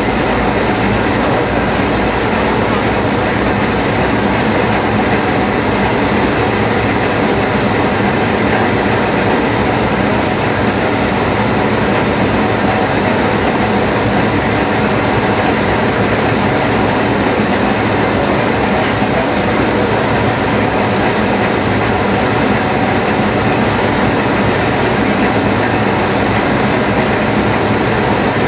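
GDS-100 spring coiling machine running steadily, feeding wire through its rollers and coiling a heavy rolling-door spring. The sound is a continuous mechanical din with several steady hums and no pauses.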